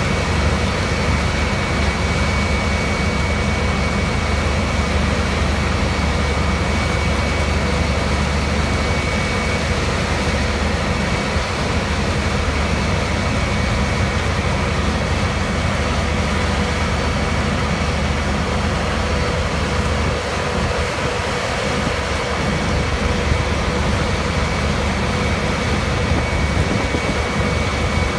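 Powerscreen Trakpactor 320SR closed-circuit tracked impact crusher running under load, crushing asphalt millings. A steady, heavy machine drone: a low rumble with a constant high whine over it.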